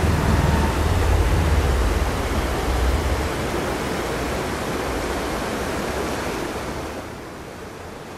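Rushing of a swift glacial river, a steady full hiss of fast water. Wind rumbles on the microphone for the first three seconds, and the rush drops a little in level about seven seconds in.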